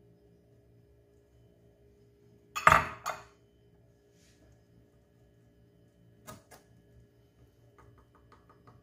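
A small glass bowl knocks down hard twice in quick succession about three seconds in, a loud clink and clatter of glass. Later a wire whisk stirring flour ticks lightly against the side of a glass mixing bowl, a quick run of small clinks near the end. A low steady hum runs underneath.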